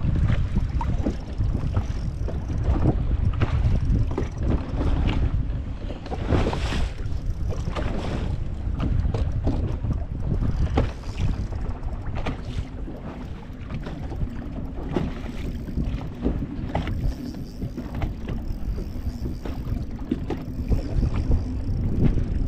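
Wind buffeting the microphone on a fishing boat out on open water, with a dense low rumble and irregular knocks against the boat throughout. A faint steady hum joins about halfway through.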